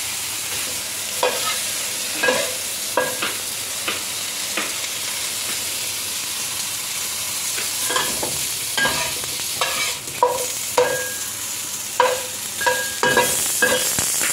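Fish nuggets sizzling in a nonstick wok with a little water and no oil, a steady hiss, while a spatula scrapes and clinks against the pan as they are turned, in many short strokes that come more often in the second half.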